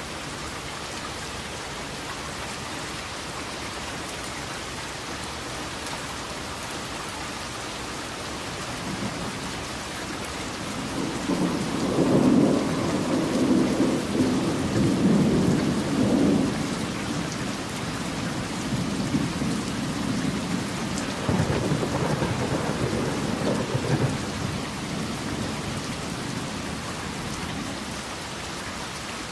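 Steady rain falling, with a long roll of thunder building about a third of the way in, rumbling loudest for several seconds, swelling again later and dying away near the end.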